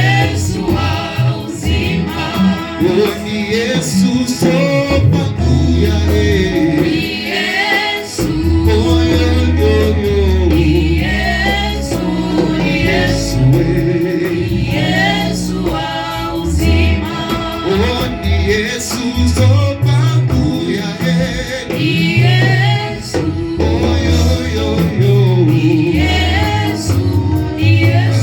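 Gospel worship song: voices singing over a band with a strong, steady bass line.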